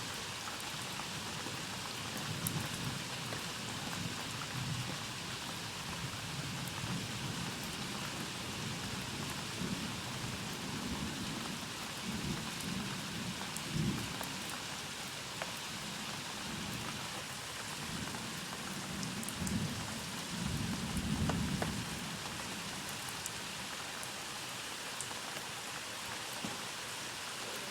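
Steady rain during a thunderstorm, with low thunder rumbling that swells several times, loudest about three-quarters of the way through.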